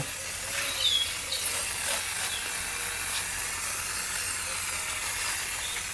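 Aerosol can of Gunk heavy-duty engine degreaser spraying a gel over an engine: a steady hiss.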